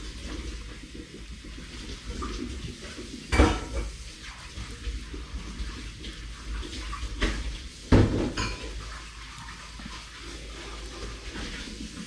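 Household clatter: a few sharp knocks and clinks, the loudest about three and a half and eight seconds in, over a steady hiss.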